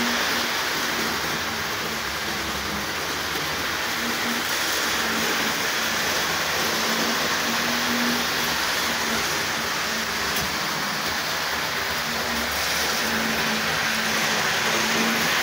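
Model trains running on a OO-gauge layout, a Hornby class 31 diesel and a Hornby Helmingham Hall: a steady rush of small wheels on the track with a low motor hum that comes and goes.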